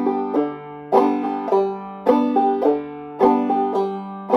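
Five-string banjo played in clawhammer style: the finger strikes single notes downward and the thumb comes home onto the fifth (drone) string without sounding it. The notes ring in a slow, even rhythm, a strong strike about once a second with softer notes between.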